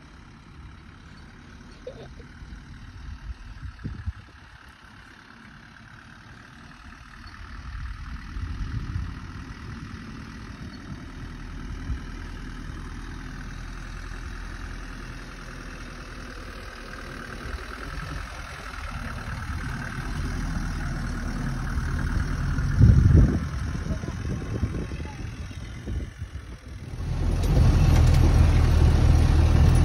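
Land Rover Series 3 engine running as it drives across a field, growing louder as it approaches. About 27 seconds in the sound jumps to a louder, steady engine note heard from inside the cab.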